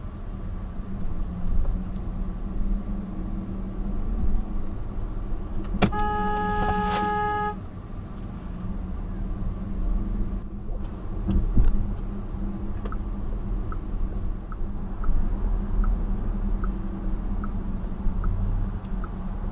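A car horn sounds once, held for about a second and a half, about six seconds in, over the steady low rumble of a car driving slowly. Later a light ticking repeats about three times every two seconds.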